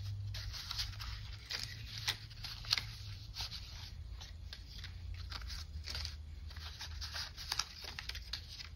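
Die-cut paper and vellum ephemera pieces rustling and clicking as they are shuffled through by hand, with a low steady hum underneath.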